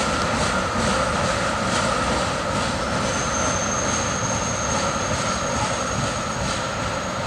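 Tank cars of a freight train rolling away over jointed track: a steady rumble with regular wheel clicks over the rail joints and a steady high ring, slowly fading. A thin high whistle-like tone comes in about three seconds in.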